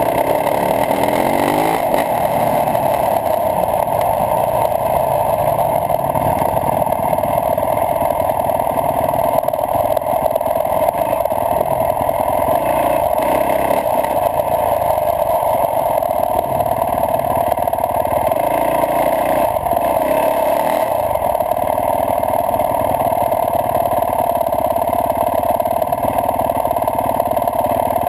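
Yamaha YZ450F single-cylinder four-stroke dirt bike engine running under way on a dirt track, its revs rising and falling with the throttle, over a steady rush of noise.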